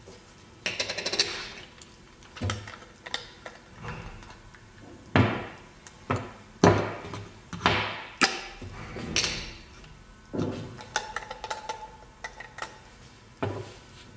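Parts of a manual salt and pepper grinder are handled and set down on a wooden table: metal-and-plastic grinder heads and caps knocking and clacking, with short rattles and scrapes. There are a dozen or so irregular knocks, the loudest about five and seven seconds in.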